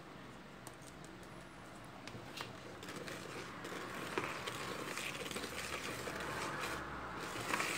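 Hand whisk stirring thick sponge-cake batter of flour, yolks and sugar in a plastic mixing bowl, with scratchy scraping and small clicks against the bowl. Faint at first, it grows louder after two or three seconds.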